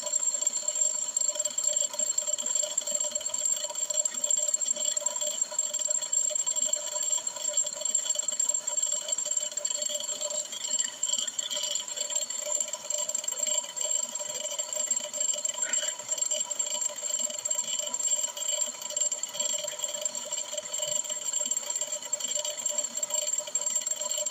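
Brake lathe turning a brake drum as it is resurfaced, a steady machine whine made of several constant tones over a rattling hiss.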